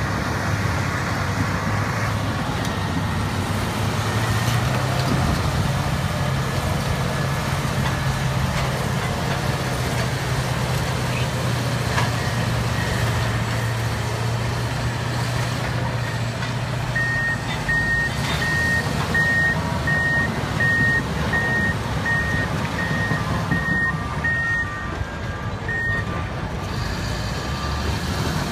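Diesel engines of two crawler dozers, a Komatsu D275 and a Cat D9, working with a steady low drone. From a little past halfway a backup alarm beeps about one and a half times a second, and near the end a second, lower-pitched backup alarm joins it.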